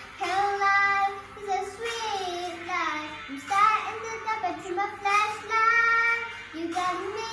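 A young girl singing solo, with long held notes that slide in pitch.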